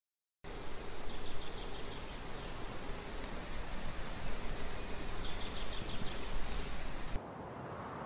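Outdoor ambience: a steady noisy hiss with two runs of short high chirps, cutting about seven seconds in to a quieter, duller hiss.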